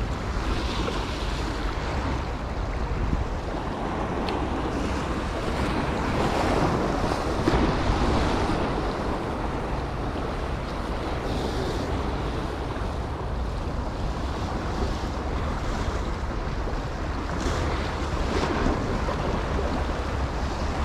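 Sea surf washing over rocks: a steady rush of small waves, swelling louder now and then.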